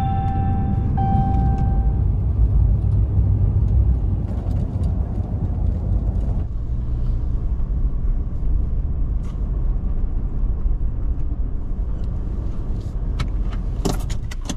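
Steady low rumble of a vehicle on the move. A held high tone fades out about two seconds in.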